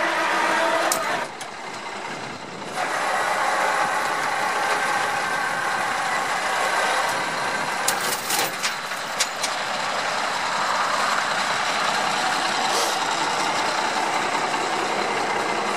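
Ford L8000 rollback truck running steadily while its bed winch hauls a truck up the tilted deck. The sound dips briefly about a second in, and sharp metallic clicks and clanks come midway and once more near the end.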